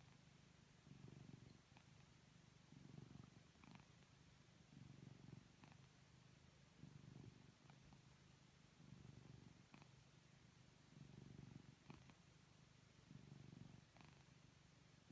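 A kitten purring softly as it falls asleep, the purr swelling and easing about every two seconds.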